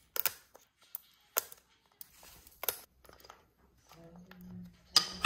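Cockatoo's beak gnawing and cracking a wooden toy held in its foot: sharp irregular clicks and snaps, with a low steady hum for about a second near the end.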